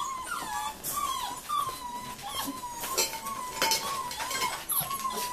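43-day-old Rhodesian Ridgeback puppies whimpering almost without a break in high, wavering whines, with a few sharp metallic clinks from the tin cans and spoons hanging on their play frame.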